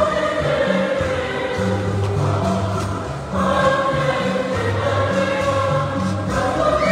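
Choir singing slow gospel music in long held phrases over a pulsing low bass line, with a new phrase beginning about halfway through.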